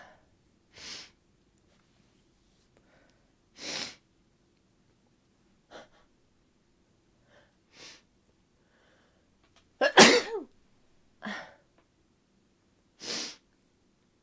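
A woman's sneeze about ten seconds in: a sharp burst that ends in a short voiced cry falling in pitch. Several softer breathy bursts come before and after it.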